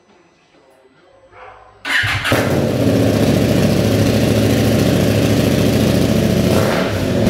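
KTM 890 Adventure R Rally's parallel-twin engine starting about two seconds in and running loud and steady at idle through an aftermarket IXIL exhaust, with the catalytic converter replaced by a suppressor pipe.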